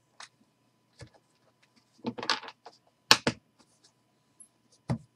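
A thick stack of trading cards being handled and squared up by hand, giving a string of light clicks and rustles with a few sharper taps, the loudest about three seconds in.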